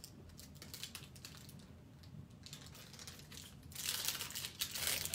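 Clear acrylic stamp block being cleaned on a stamp-cleaning pad: light clicks and rubbing, then a louder burst of rustling, crinkling noise about four seconds in.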